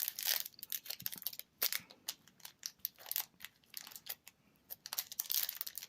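Foil wrapper of a Magic: The Gathering booster pack crinkling and crackling as hands squeeze and pull at it to open it.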